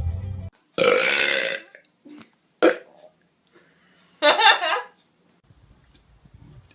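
Loud human burps: a long belch about a second in, a short sharp one, then another belch near the middle.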